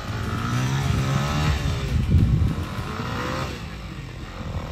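Motorcycle engine revving up and down twice, the pitch rising and falling, over a heavy low rumble.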